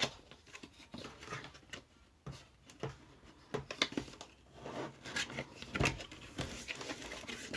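A cardboard product box being opened and its packaging handled: scattered light taps, clicks and rustles.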